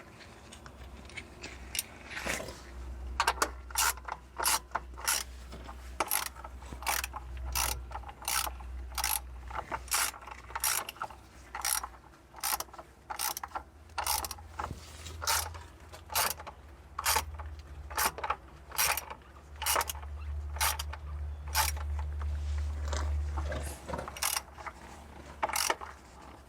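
A socket ratchet wrench clicking in a long series of short strokes, about one to two clicks a second, with a low hum underneath at times.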